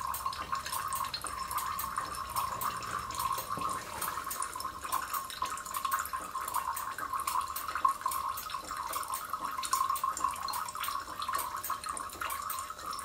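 Brake fluid trickling and dripping through a bleed tube into a small glass jar as a motorcycle's front brake caliper is bled, a steady trickle with many small irregular drips.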